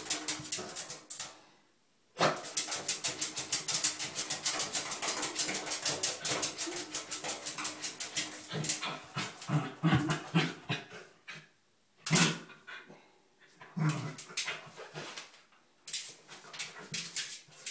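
Corgi digging at a dry bathtub, its claws scraping the tub surface in rapid strokes, several a second. The scratching stops briefly twice, about two seconds in and near twelve seconds. The dog whimpers a few times in the second half.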